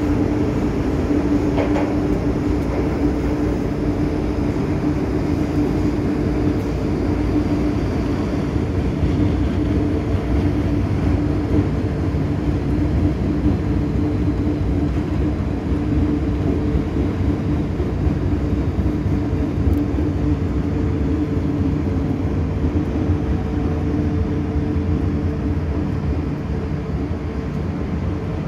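MTR M-Train metro car running, heard from inside the passenger car: a steady low rumble with a constant two-note hum from the train's equipment.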